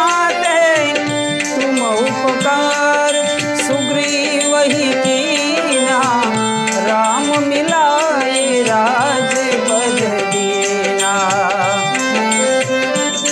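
Instrumental interlude of Indian devotional bhajan music: tabla keeps the beat under an ornamented melody line that wavers and slides in pitch.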